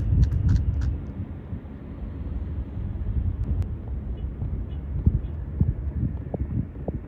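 Open-air rumble, like wind buffeting a phone microphone or distant traffic, with a few short soft knocks in the second half.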